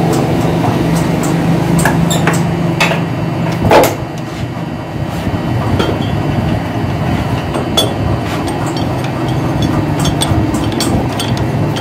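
Steady machine hum with scattered metal clinks and knocks as a threaded steel rod is set into a lathe's three-jaw chuck, one knock about four seconds in louder than the rest.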